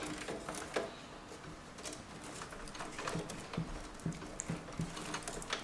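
Hands rustling and shifting bundles of power cables inside an open PC case, with light, irregular clicks and taps as the cables are pushed into place and tied together.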